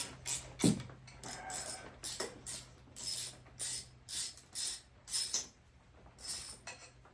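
Socket ratchet clicking in quick back-and-forth strokes, about two a second, as it backs out half-inch exhaust bolts.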